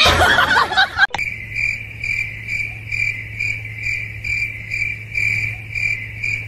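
A loud rush of noise cuts off about a second in. Then a cricket chirps steadily, about two chirps a second, over a low steady hum.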